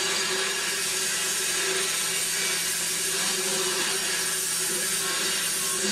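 Steady hissing and running noise of a steam locomotive working a slow-moving train, with steam escaping low down by the engine.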